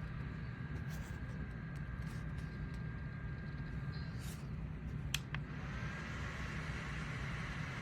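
Small electric fan running with a steady whir and a faint motor whine, with a couple of sharp clicks about five seconds in.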